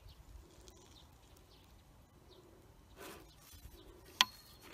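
Quiet outdoor background with a brief rustle about three seconds in and a single sharp tap near the end, as a wooden spacing gauge is handled and moved along black plastic mulch.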